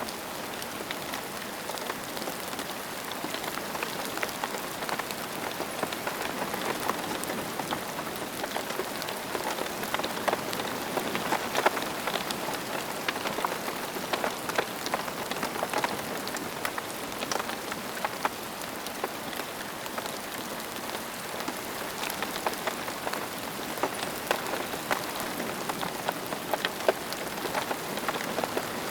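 Steady rain falling on hard surfaces, an even hiss full of close, individual drops ticking and splashing.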